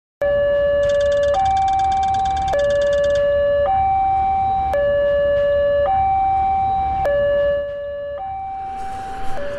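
Electronic two-tone railroad crossing warning alarm, alternating between a low and a high tone about once a second. A rapid ticking sounds over it for the first couple of seconds. Near the end the alarm fades and a rising rushing noise builds.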